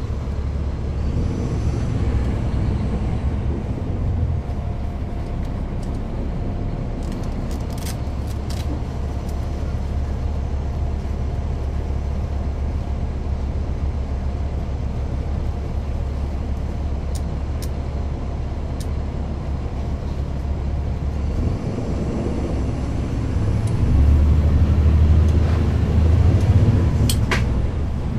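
Caterpillar C13 diesel engine of a NABI 416.15 transit bus, heard on board from the rear seats, running steadily under way with a deep rumble and a few light rattling clicks. Near the end the engine gets louder for a few seconds, then eases back.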